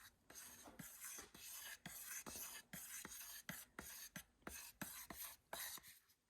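Faint rhythmic scraping, about three strokes a second with a light knock on each, of a stir stick mixing automotive paint with reducer in a mixing cup.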